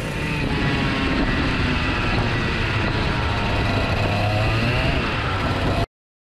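Onboard sound of a 125cc two-stroke kart engine running on track, its pitch rising and falling with the throttle. The sound cuts off abruptly near the end.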